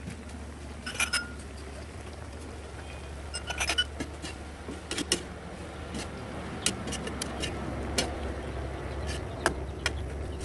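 A metal ladle clinking and scraping against a metal pan as a vegetable soup is stirred, with irregular sharp clinks every second or so over a steady low hum.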